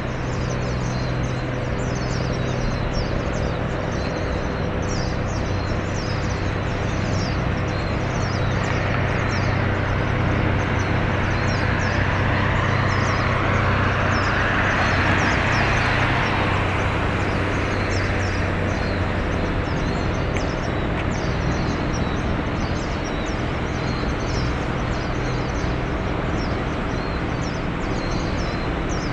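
Outdoor traffic ambience: a steady low engine hum, and a vehicle passing that swells and fades about halfway through. Short high chirps repeat throughout.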